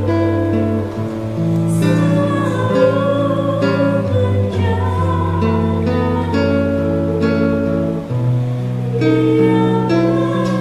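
A woman singing a slow worship song over guitar accompaniment, with held bass notes underneath.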